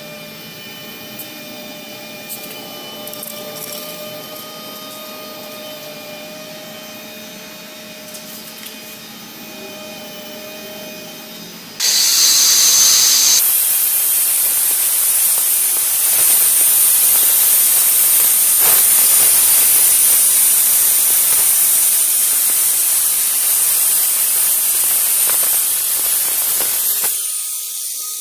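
Tableau 1850 W electric wall chaser cutting a wet groove into a concrete floor: a loud, steady grinding hiss that starts suddenly about twelve seconds in and stops shortly before the end. Before it, a quieter, steady electric motor whine.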